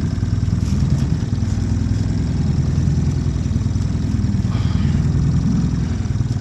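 Boat's outboard motor running steadily at low speed, a continuous low engine hum.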